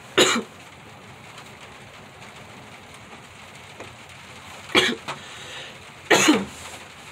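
A person's short coughs, three of them: one right at the start, one near five seconds in and another about a second later, over a steady hiss of rain.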